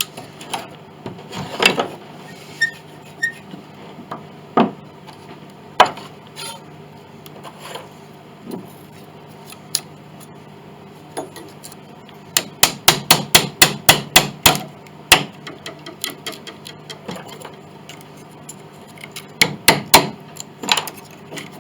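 Hammer tapping wooden wedges into a glued joint of an old grand piano to work the part loose: scattered single knocks at first, then a quick run of about a dozen strikes, a few each second, and a shorter run near the end.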